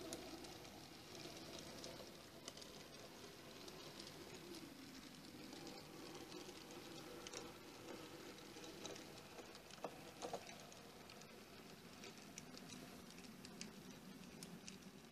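Faint running noise of an H0e narrow-gauge model train passing: a small electric motor humming and wheels ticking and rattling over the track, with a few sharper clicks about ten seconds in.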